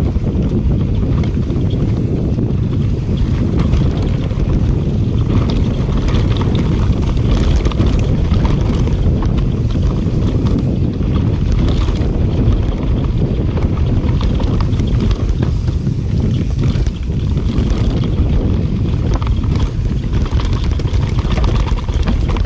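Wind buffeting a GoPro's microphone over the rumble and rattle of a mountain bike descending a rough, dry dirt trail, with scattered clatters as it hits roots and bumps.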